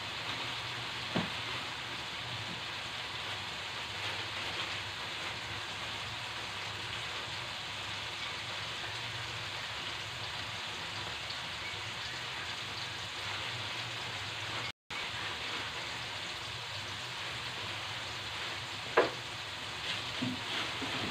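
Tomatoes, onion and chilli sizzling steadily in a stainless steel wok, with a couple of sharp knocks of the metal spatula against the pan, about a second in and near the end.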